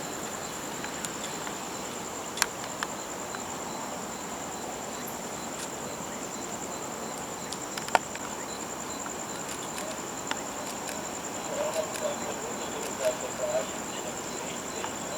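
Insect giving one steady, high-pitched trill over a background hiss, with two sharp clicks about two and a half and eight seconds in.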